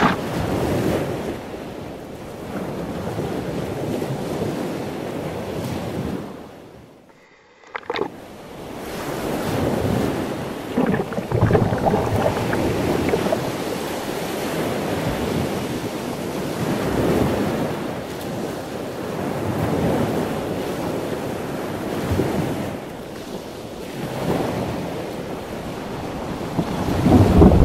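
Ocean waves breaking and surf churning right around a camera held at water level, with wind on the microphone. The rush swells and fades with each wave, and drops out almost completely for about a second a little past a quarter of the way through.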